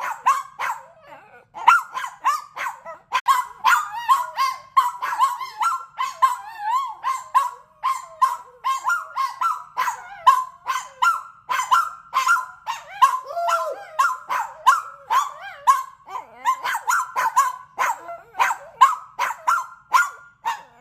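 Dogs barking back and forth in a barking contest: a fast, unbroken run of short, sharp barks, two to three a second, after a brief pause about a second in.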